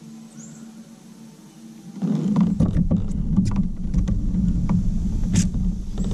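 Pedal drive of a Native Slayer Max kayak being pedaled, starting about two seconds in: a loud, steady low rumble with irregular clicks and knocks.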